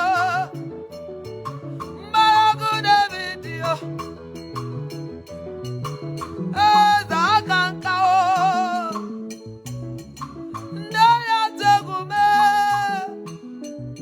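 Gospel worship music: a singer's wavering, held phrases come in bursts of a few seconds over a continuous band accompaniment with a moving bass line.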